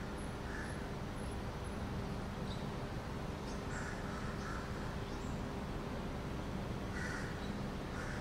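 Crows cawing in short bouts: a call or two near the start, about three in a row midway, and another near the end. Under them runs a steady low background hum.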